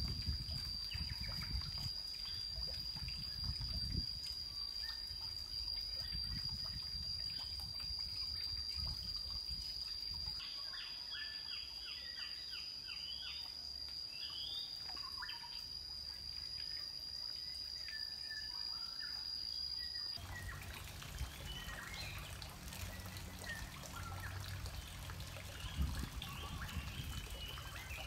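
Outdoor ambience: a steady high-pitched whine that cuts off abruptly about two-thirds through, birds chirping, and low rumbling handling noise, with a couple of sharp knocks as heavy precast concrete rings are set in place.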